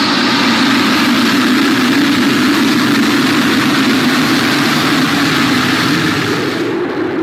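Vickers VC10's four rear-mounted Rolls-Royce Conway jet engines running at high power on the runway: loud, steady jet noise with a low drone that rises slightly in pitch toward the end.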